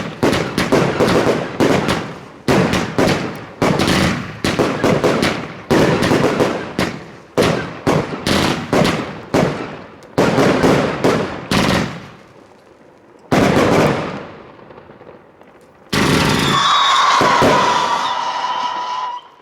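Fireworks going off in rapid volleys of bangs, several a second, for about twelve seconds, then one more bang. Near the end a steady hissing rush with a whistle in it runs for about three seconds and cuts off suddenly.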